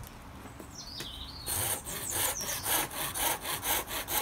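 Small hand saw cutting stop cuts into the wooden handle blank of a carved cup, quick rasping strokes at about four a second that start about a second and a half in.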